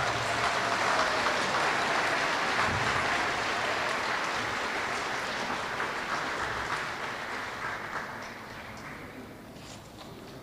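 Audience applauding, loudest at the start and dying away over about nine seconds.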